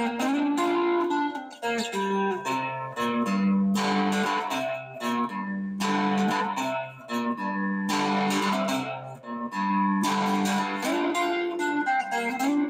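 A three-string ammo can guitar, a cigar-box-style guitar with a metal ammo-can body and a maple neck, played with a run of picked notes and chords.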